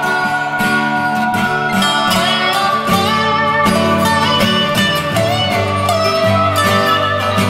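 Background music: a plucked guitar tune with a steady rhythm and a country feel.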